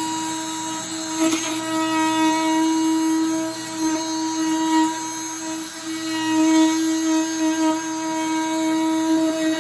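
Corded Rockwell oscillating multi-tool running as its blade cuts into the plastic tub of a dishwasher: a steady, even-pitched buzzing hum that swells and dips in loudness as the blade bites.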